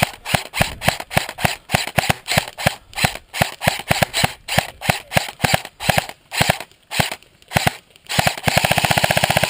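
Airsoft electric rifle firing rapid single shots, about four a second, then switching to a fast full-auto burst near the end.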